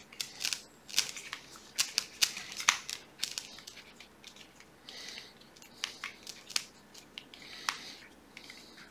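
A Torx T9 screwdriver turning a small screw out of a SIKA P40.2 hand test pump body: irregular light metallic clicks and scrapes of the tool working the screw, busiest in the first few seconds, with a few soft scrapes later.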